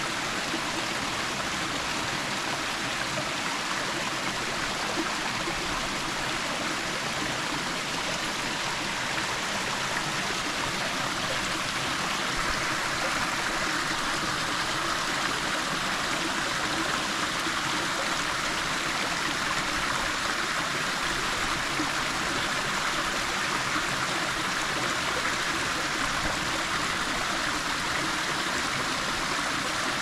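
Small stream running through a narrow rock channel, water spilling over a low rock step: a steady, unbroken rush of water.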